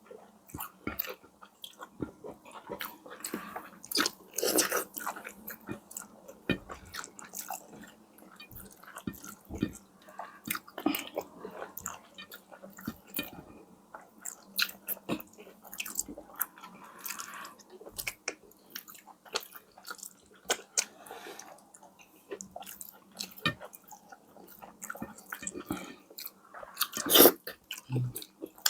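Close-miked mouth sounds of a person eating: irregular biting, chewing and wet smacking clicks, with a louder burst about four seconds in and the loudest near the end.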